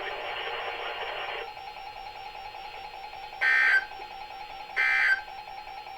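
Emergency Alert System SAME digital tones from a Required Weekly Test on NOAA Weather Radio: two short, shrill warbling data bursts about a second and a half apart, after a second and a half of hiss. Their shortness and the return of the regular broadcast right after mark them as the end-of-message bursts that close the test.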